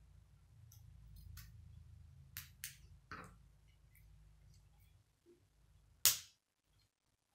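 Plastic K'nex pieces clicking together as they are snapped into place by hand. A run of small clicks comes over a low handling rumble, then one sharp, loud snap about six seconds in.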